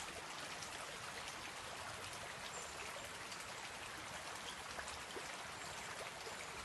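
Water of a small waterfall cascade falling and splashing, a steady even rush.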